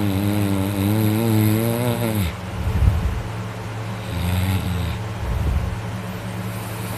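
A sleeping person snoring loudly: one long snore with a low, wavering pitch that falls off about two seconds in, then rough breathing and a second, shorter snore about four seconds in.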